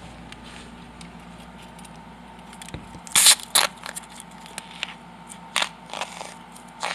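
Short crackling and scraping handling noises from hands-on work, the loudest two close together about three seconds in and a few more spread after, over a steady low hum.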